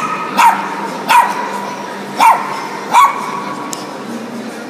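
A dog barking: four sharp, high-pitched barks, roughly a second apart, then a pause near the end.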